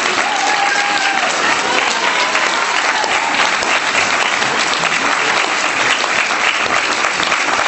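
Dense, steady applause from a theatre audience, with the cast on stage clapping along, at a curtain call. A few voices call out near the start.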